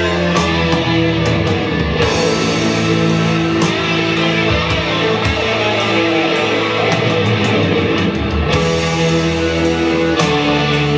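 Guitar-led rock music played loud through a pair of Scansonic MB1 hi-fi loudspeakers, heard in the room, with the chords changing about two seconds in and again about eight and a half seconds in.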